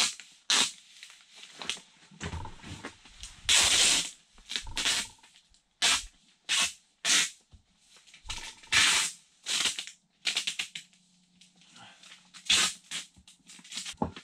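Blue Tuck Tape sheathing tape being pulled off the roll and pressed along a door frame over poly vapor barrier. Short, irregular rips of tape and rubbing, crinkling plastic sheeting come in quick bursts, with a few dull knocks.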